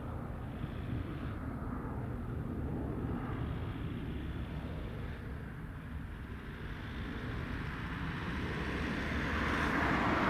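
Boeing 767-300ER twin jet engines at climb power, heard from the ground as the airliner climbs away after takeoff: a steady low rumble, getting louder and hissier over the last couple of seconds.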